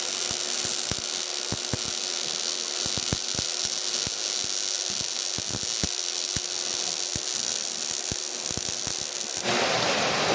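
MIG welding arc with CO2 shielding gas: a steady hiss with irregular sharp crackles and pops. About nine and a half seconds in, it switches abruptly to a louder, steady rushing noise.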